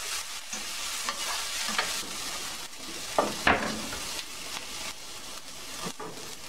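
Diced yellow onion sizzling in hot oil in a stainless steel skillet over medium heat, stirred with a wooden spatula. A few scrapes and knocks of the spatula on the pan come through, the loudest about three and a half seconds in.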